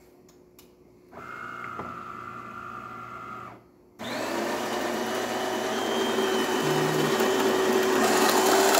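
DeLonghi Perfecta super-automatic espresso machine starting a shot. A short steady motor whine begins about a second in and stops; then, from about four seconds, the built-in coffee grinder runs steadily, getting louder as it grinds the beans for the shot.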